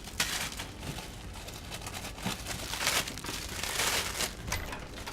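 Plastic packaging crinkling and rustling in irregular bursts as someone rummages through food packets.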